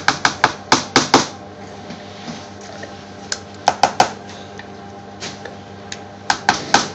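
A metal spoon tapping and scraping against a mixing bowl as tikka paste is spooned into yogurt. Quick runs of sharp clicks come at the start, about three and a half seconds in, and near the end.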